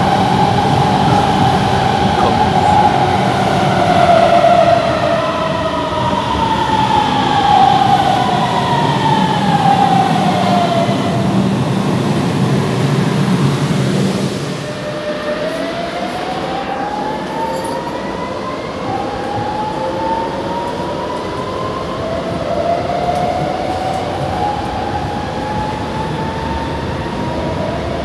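Electric metro train's traction motors whining over the rumble of wheels on rail. Several pitched tones glide downward through the first ten seconds or so. After a sudden change a little past halfway, the whine rises steadily in pitch as the train picks up speed.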